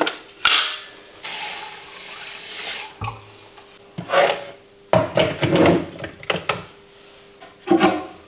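Kitchen sounds of coffee being made: a tap runs for about two seconds and cuts off, then cups and utensils knock and clatter several times.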